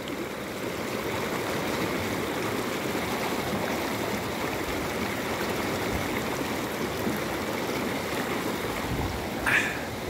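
Shallow mountain stream rushing and splashing over rocks: a steady rush of water.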